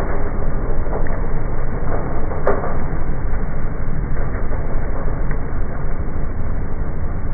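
Ride-on lawn mower running steadily across a dry verge, heard in slowed-down slow-motion playback: a continuous deep, dense rumble with a few brief faint ticks.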